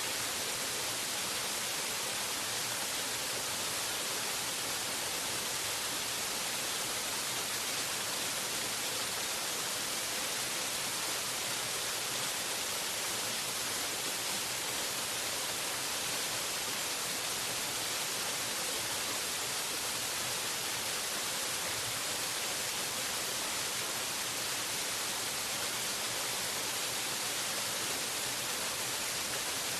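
Waterfall rushing in a steady, unbroken hiss, strongest in the high end and with no change in level.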